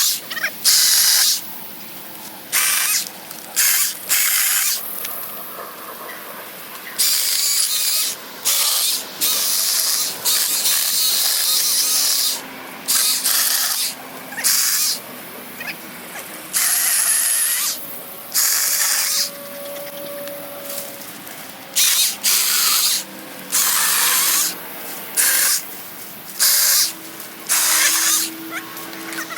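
Craftsman 20-volt battery chainsaw cutting small limbs in short bursts, each a second or two long, starting and stopping sharply again and again.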